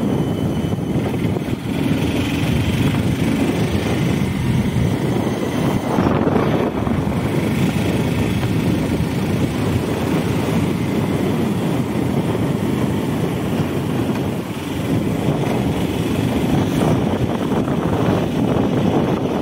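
Motorcycle engine running steadily while being ridden, a continuous rumble with road and wind noise.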